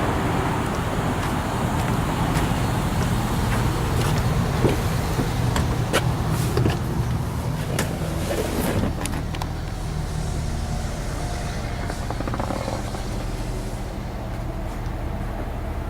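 A vehicle engine idling steadily, with a run of short clicks and knocks between about four and nine seconds in.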